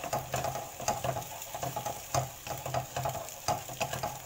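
Eggs sizzling in hot oil in a nonstick wok while a spatula scrapes and taps against the pan, stirring them into scrambled egg. The scrapes and taps come several times a second, at an uneven pace.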